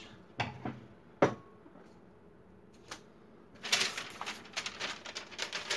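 Hands handling a plastic laser toner cartridge and tools on a wooden workbench: a few separate sharp clicks, the loudest about a second in, then from about three and a half seconds a dense, quick run of clicks and knocks.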